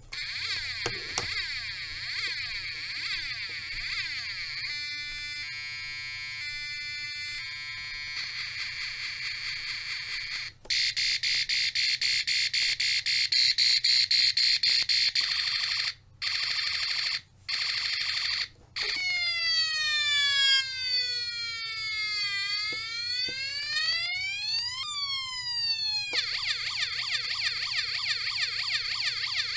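Electronic 16-sound-effects generator kit cycling through its synthesized effects: harsh buzzing tones, a choppy beeping pattern, fast pulsing with brief dropouts, then siren-like sweeps that fall and rise in pitch for several seconds.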